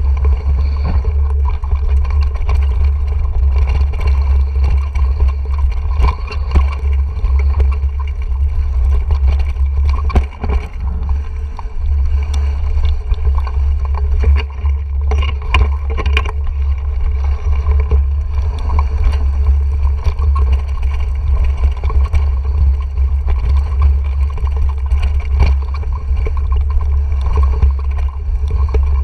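Wind buffeting an action camera's microphone on a mountain bike riding fast downhill, a heavy steady rumble, with scattered knocks and rattles from the bike over rough ground.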